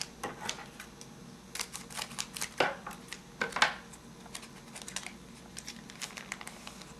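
A pack of hockey trading cards being opened and handled: an irregular run of crinkles, taps and clicks from the wrapper and the cards, thinning out after about four seconds.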